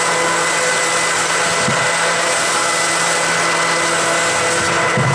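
Electric jet-drive unit of an e-surfboard running steadily at high power in a water test tub, drawing close to 50 amps: a steady motor whine over churning, frothing water.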